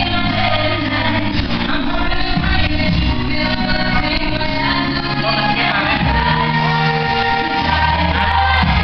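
Music: a song with singing over a steady bass line.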